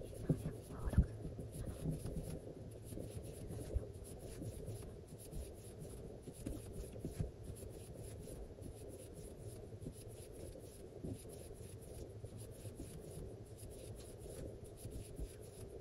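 Faint soft rubbing with light irregular ticks: a metal crochet hook drawing fuzzy yarn through loop after loop as a long chain of crochet stitches is worked by hand.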